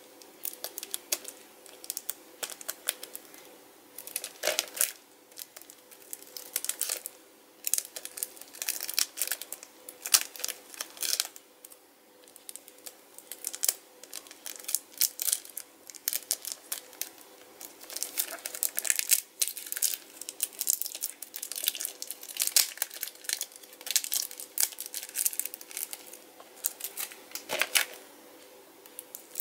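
Clear plastic shrink wrap crinkling and tearing as it is picked at and peeled off a Blu-ray case by hand, in irregular clusters of crackles with short pauses between.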